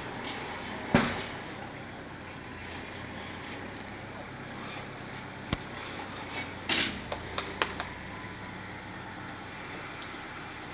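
Horse tack and saddle noises as a rider mounts: a thump about a second in as she settles into the saddle, then a sharp click and a short run of clicks and knocks, over steady background noise.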